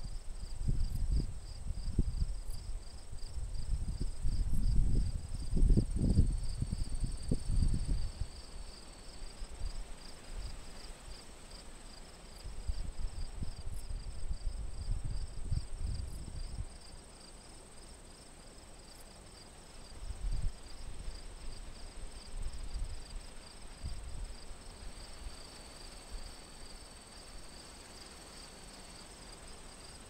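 Field insects trilling steadily in a fast pulsing chirr, with a thin high whine above it, while gusts of wind buffet the microphone in low rumbles, heaviest in the first several seconds.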